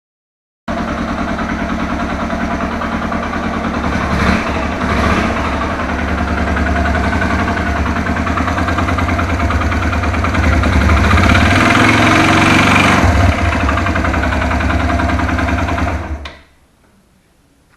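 Suzuki Thunder 125's single-cylinder four-stroke engine running, blipped briefly twice, then held at higher revs for a few seconds before dropping back and stopping near the end. The owner hears strange noises from inside this engine, bad enough to need an engine teardown.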